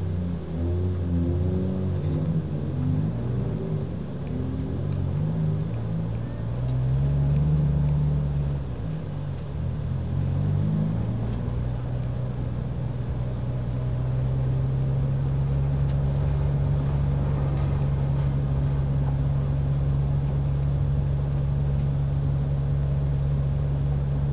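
Toyota Vios race car's engine heard from inside the cabin at low speed. The revs rise and fall for roughly the first ten seconds, then hold at a steady low drone.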